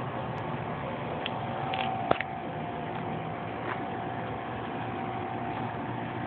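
Steady machine hum with a constant whining tone running throughout, and one sharp click about two seconds in.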